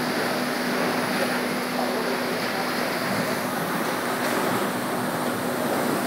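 Tunnel boring machine cutterhead grinding through a concrete station wall as it breaks through, with broken concrete falling: a steady, dense rushing noise with a constant low hum underneath.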